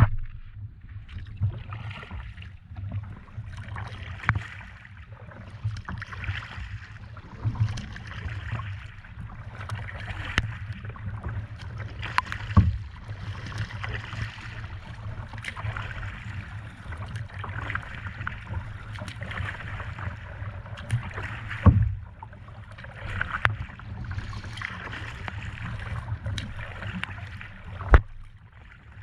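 Kayak being paddled: repeated splashes of the paddle blades through the water every second or two, with a few sharp knocks along the way and a steady low rumble underneath.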